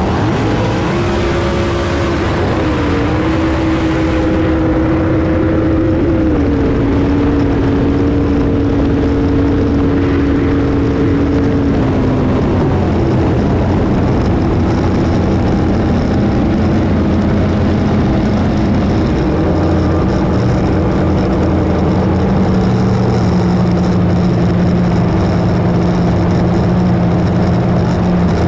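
Drag-racing jet boat engine running loud through the pass, its pitch shifting up and down in the first few seconds, then stepping down and holding steady; a lower steady engine tone carries the second half.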